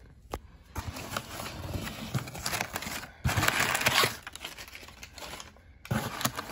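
Crumpled brown kraft packing paper rustling and crinkling as it is handled and pulled out of a cardboard box, loudest about halfway through.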